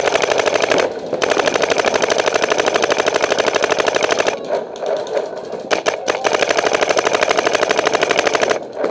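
Paintball marker firing rapid strings of shots at close range, several shots a second. The strings break off briefly about a second in and again near the middle, where a few single shots sound, then a long string runs until shortly before the end.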